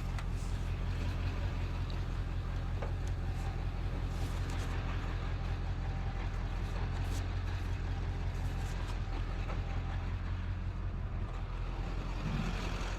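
Truck engine running steadily, a low even drone with a few faint ticks over it.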